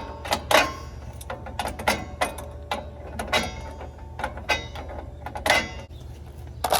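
Irregular metal clicks and clanks of hand tools and parts being worked on a car's drum brake.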